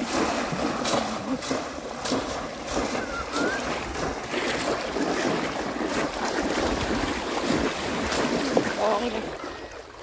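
River water splashing and sloshing in many short bursts, with wind buffeting the microphone.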